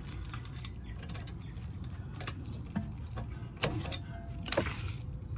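Scattered light clicks and knocks of metal brake parts being handled while greasing and refitting a rear brake caliper guide pin, the sharpest about two, three and a half and four and a half seconds in, over a steady low rumble.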